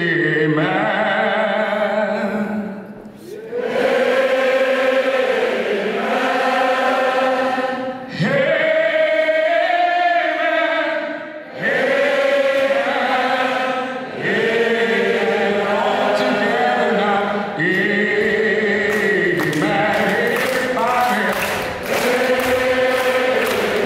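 A man singing long, held phrases into a handheld microphone, with a choir singing along. Near the end, hands clap along in a steady beat, about twice a second.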